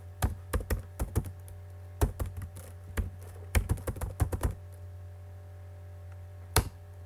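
Computer keyboard typing in quick irregular bursts of keystrokes, with a pause of about two seconds before a last keystroke near the end. A steady low hum runs underneath.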